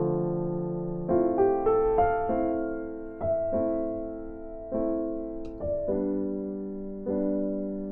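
Background music: soft piano chords struck about once a second, each fading away.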